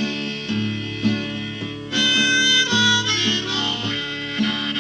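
Intro music: a harmonica playing over a plucked guitar accompaniment, the harmonica coming in brighter about two seconds in.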